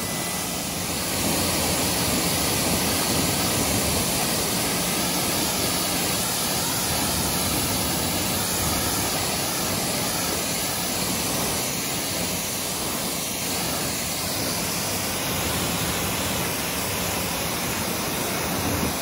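Pressure washer spraying a steady jet of water onto a pickup truck to rinse off the soap: a continuous, even hiss of spray.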